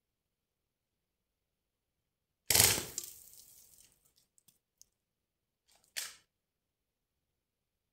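A CO2 BB gun fires once, a loud shot that dies away over about a second, followed by a few faint ticks. A second, shorter and quieter sharp sound comes about three and a half seconds later.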